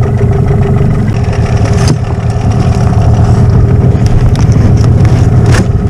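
Boat's outboard motor running steadily at trolling speed, with a short knock about two seconds in and another near the end.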